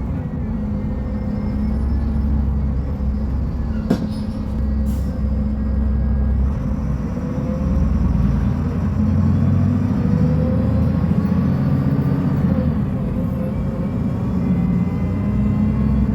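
Diesel engine of a Mercedes-Benz O500U city bus running, a steady low rumble whose pitch shifts slightly, with a sharp click about four seconds in.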